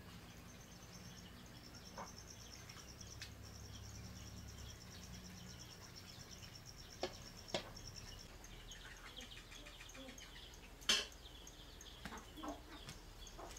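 Faint ambience of birds chirping high and thin, with a few sharp clicks or knocks, the loudest one late on.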